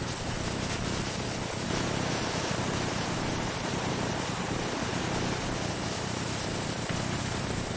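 Factory machinery running steadily: an even hiss over a low hum, with no distinct strokes or changes.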